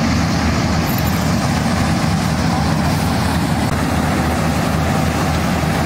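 Combine harvester running steadily while cutting a ripe paddy crop: a constant, unbroken engine and machinery drone.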